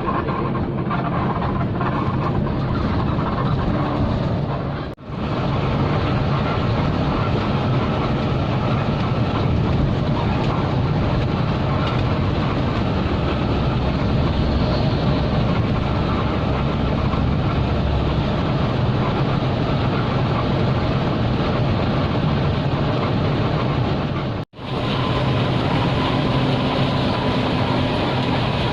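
Intercity coach bus driving: steady engine and road noise, broken twice by a sudden brief drop-out, about five seconds in and again near the end.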